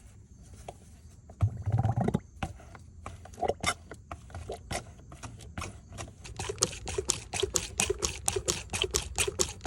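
Hand fluid transfer pump being worked, a run of short squeaky clicks that get quicker and more regular, pumping differential fluid in. A louder rustle and knock comes about a second and a half in.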